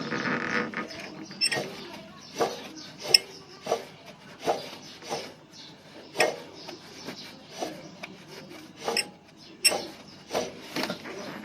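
Hand-tool work on a car engine, with a dense scraping burst at the start and then a run of short, uneven clicking and scraping strokes, about one to one and a half a second.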